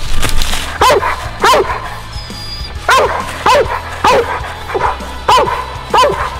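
Hound barking up a tree at a treed squirrel: about eight loud, sharp barks, coming in loose pairs.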